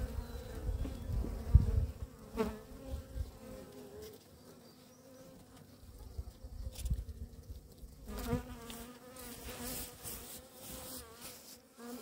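Honey bees buzzing steadily on and around a hive frame held close, with single bees now and then bending in pitch as they fly past. Low rumbling knocks from handling come in the first few seconds, the loudest about one and a half seconds in.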